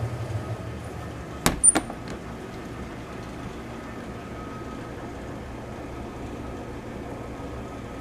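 1931 Frigidaire refrigerator's compressor running with a steady low hum while the unit refrigerates. Two sharp clicks come about a second and a half in.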